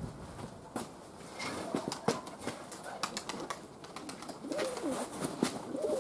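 Domestic pigeons cooing in wavering, rolling calls, thickest in the second half, with scattered sharp clicks.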